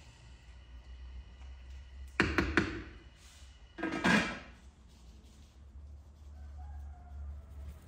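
Two short clusters of knocks, about a second and a half apart, over a low steady hum.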